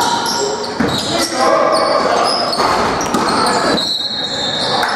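Basketball play on a hardwood gym court: sneakers squeaking in many short, high chirps, with the ball bouncing.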